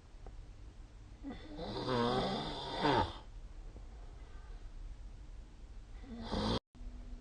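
A sleeping person snoring. A loud snore with a wavering pitch begins about a second in and lasts nearly two seconds. A second snore starts near the end and cuts off suddenly.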